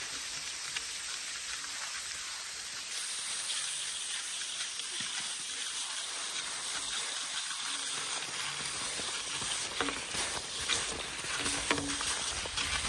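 Cross-country skis gliding and scraping along groomed snow tracks: a steady hiss.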